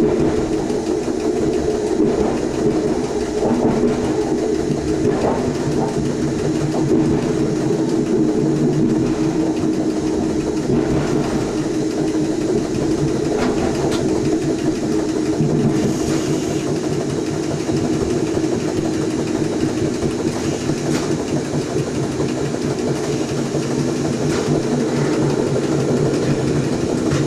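Electric passenger train heard from the driver's cab, running steadily with a constant motor hum. Now and then the wheels click over rail joints and points.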